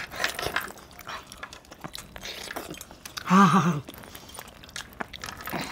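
A person eating chicken by hand: chewing, with many small wet mouth clicks. About three seconds in comes a short voiced hum or grunt.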